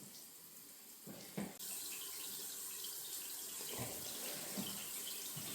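Shower water running, a steady hiss that gets louder about a second and a half in, with a few soft knocks.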